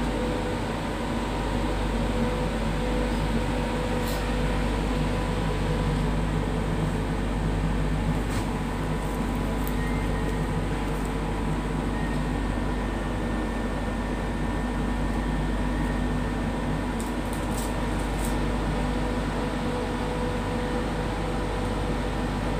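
Steady mechanical hum inside an enclosed Ferris-wheel gondola, a low rumble with a few held tones under it, and a few faint clicks.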